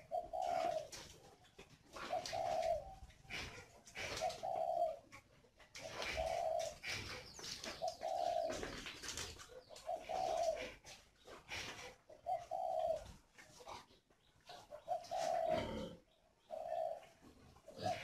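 Spotted doves cooing: short, low coos repeated about every one to two seconds. This is the breeding coo by which the male urges the hen to lay.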